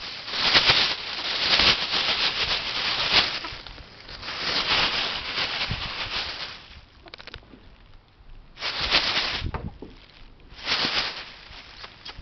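Plastic bag crinkling and rustling as ferrets play in it, in several noisy bursts. The crinkling is long and loud over the first few seconds, then comes in shorter bursts with quieter scuffling between.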